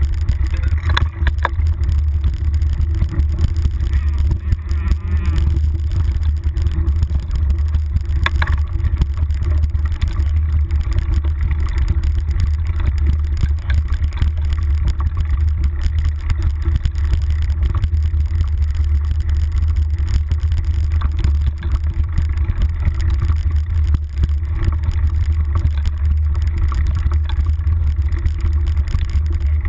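Mountain bike rolling downhill on a leaf-covered dirt singletrack, heard through a handlebar-mounted action camera: a steady low rumble with the bike clattering over bumps. The sharpest knocks come about a second in and at about eight and a half seconds.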